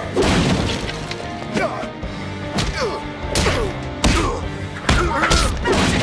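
Tense action music under animated fight sound effects: several hard hits and thuds, and a wooden crate smashing as a body crashes into it.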